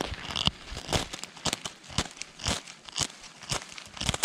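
Ferro rod (fire-starting "flint") being scraped hard with a metal striker over dry paperbark tinder: repeated sharp rasping scrapes, about two a second, as it is struck to throw sparks.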